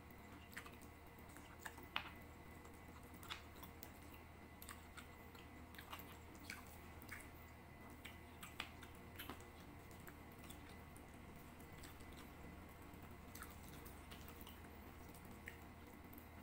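Faint close-miked chewing and biting of braised adobo chicken eaten by hand: soft wet mouth clicks, most frequent in the first ten seconds, the loudest about two seconds in.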